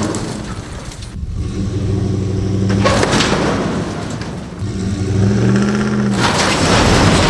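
A truck engine revs hard in two surges as it pulls on a tow strap under heavy load, tearing the body off an RV. Loud rushing noise swells with each pull.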